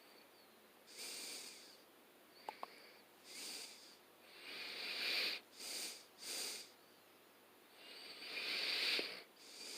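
A man breathing audibly close to the microphone: a run of short, hissing breaths through the nose while he concentrates on handwork. Two faint clicks come about two and a half seconds in.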